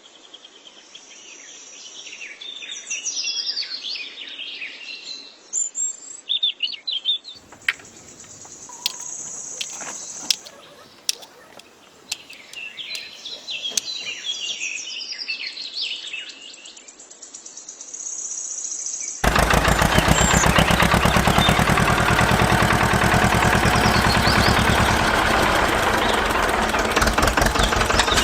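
Birds chirping over the first two-thirds, with a few sharp clicks in the middle; then a loud, steady mechanical noise with a fast rhythm, a small motor running, starts abruptly and carries on.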